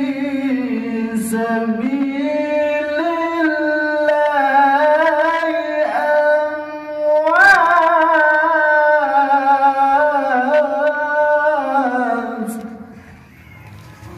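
A man's voice reciting the Qur'an in melodic tilawah style, amplified through a handheld microphone. The phrase is long and unbroken, with held notes and ornamented turns. It climbs to a higher peak about halfway through and fades out near the end.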